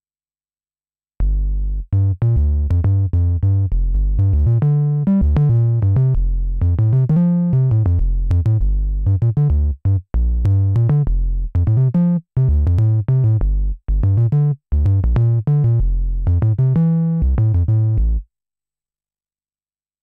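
Dave Smith Mopho x4 four-voice analog synthesizer playing its 'Fusion Bass' preset: a bass line of short, quick notes that starts about a second in, with a few brief breaks, and stops a couple of seconds before the end.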